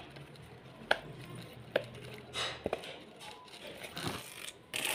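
A few short, sharp pops about a second apart from the silicone bubbles of a round pop-it fidget toy being pressed, with soft handling noise.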